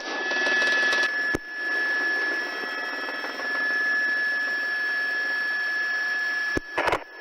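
Open police radio or helicopter intercom channel giving a steady, narrow-band hiss with a thin steady whine through it. A short click comes about a second and a half in, and two more near the end.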